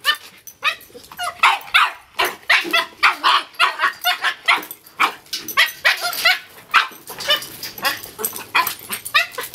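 Dogs barking over and over in short, quick barks, about two or three a second, easing off briefly near the end. Among them is a dog-aggressive Boston Terrier lunging and barking at another dog through the kennel fence.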